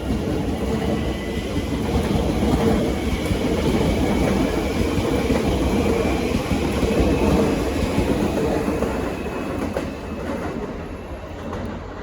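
Siemens Nexas electric suburban train passing close as it pulls out, its wheels running on the rails with a faint high whine, the noise swelling to its loudest a few seconds in and fading near the end.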